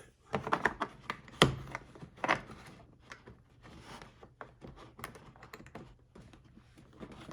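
Irregular light clicks and taps of steel circlip pliers and their removable tips being handled, with one sharper click about a second and a half in.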